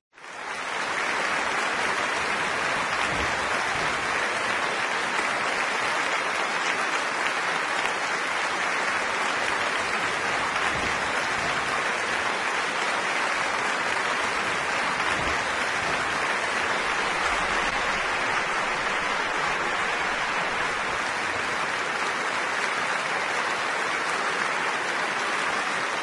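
Sustained applause from a large roomful of delegates: dense, unbroken clapping that starts suddenly and holds steady throughout.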